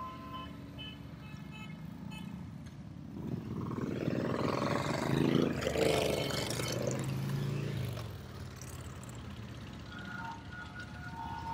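Motorcycle engines riding past: the noise swells from about three seconds in, is loudest around five to six seconds, then the engine note drops in pitch and fades as the machines go by.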